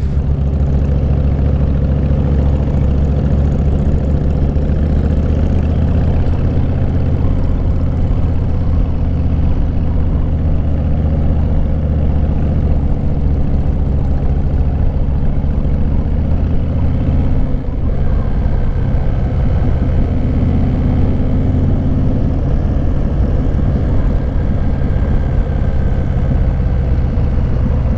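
Motorcycle engine running steadily as the bike is ridden, heard from on the bike; the engine note changes briefly about two-thirds of the way through.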